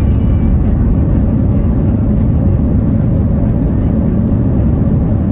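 Steady low rumble inside the cabin of a Hawaiian Airlines Airbus A330-200: engine and airflow noise heard from a passenger seat.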